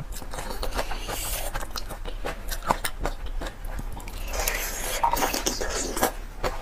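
Shells of marinated raw shrimp crackling as they are peeled apart by hand, with biting and chewing close to the microphone. There are many small clicks throughout, thickening into bursts of crackling about a second in and again near the end.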